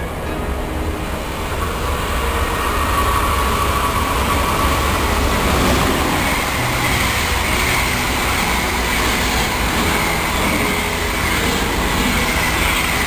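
An electric locomotive hauling passenger coaches passes at speed: a loud, steady rumble of wheels on rail that builds over the first couple of seconds, with a thin high whine over it.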